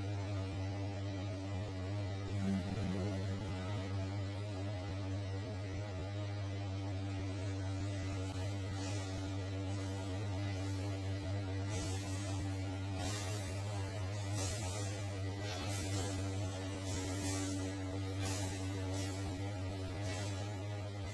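Steady low electrical hum with a stack of evenly spaced overtones. In the second half, short hissy puffs come roughly once every second or so over it.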